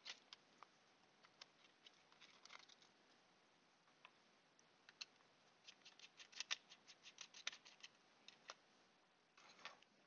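Faint, irregular clicks and ticks of a screwdriver working the small screws that hold a display module's circuit board in its plastic case. They quicken into a run of rapid ticks for a couple of seconds past the middle, and there is a short scrape near the end.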